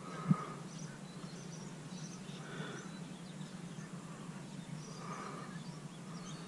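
Kayak paddle strokes on calm water: soft dips and drips about every two and a half seconds, with a short knock, like the paddle touching the plastic hull, about a third of a second in. A steady low hum sits underneath.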